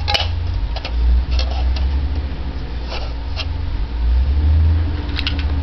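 Garbage truck outside, a low engine rumble that swells twice, with a steady hum joining about four seconds in. Light clicks of plastic toy food being handled.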